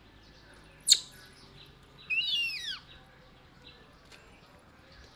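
Baby monkey giving a high-pitched squealing call that slides down in pitch, about two seconds in, after one very short, sharp high squeak about a second in.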